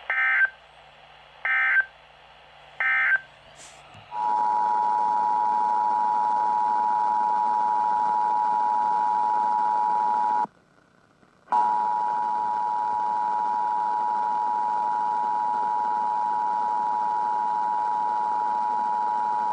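Emergency Alert System required monthly test signal: three short bursts of SAME digital header data about a second and a half apart, then the EAS two-tone attention signal (853 and 960 Hz sounded together), a steady harsh tone over background hiss. The tone drops out for about a second midway and then carries on.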